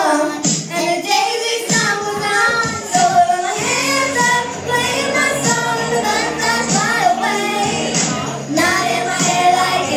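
Two young girls singing a pop song together into microphones over a karaoke backing track, amplified through a PA system.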